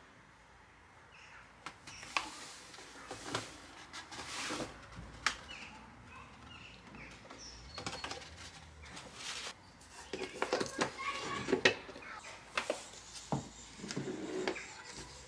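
Paper flour bag rustling and flour being poured into a plastic food processor bowl, with scattered clicks and knocks of containers being picked up and set down, busiest near the end.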